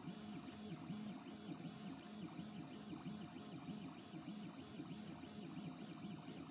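Stepper motors of a homemade 3D printer working as a pen plotter, whining in short rapid strokes that change pitch about three times a second as the pen hatches back and forth, over a steady thin hum.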